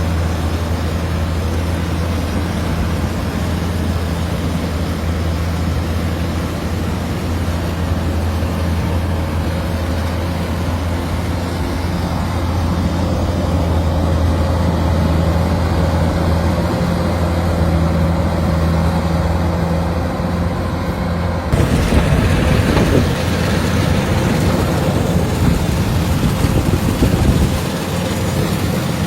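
Kubota DC-105 combine harvester's diesel engine running steadily with a low hum. About two-thirds of the way through, the sound changes suddenly to a louder, noisier clatter for about six seconds, then settles back.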